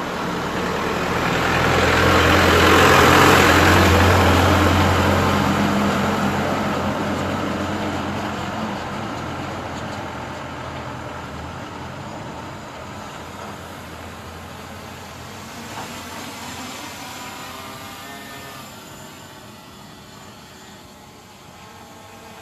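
A motor vehicle, most like a truck, passes close by: its engine and tyre noise build to a peak about three seconds in, then fade slowly as it drives away.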